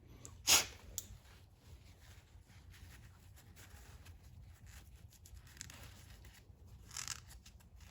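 Towel rubbing and rustling as small metal parts are wiped dry of brake cleaner, with one short sharp rustle about half a second in and another burst of rubbing near the end.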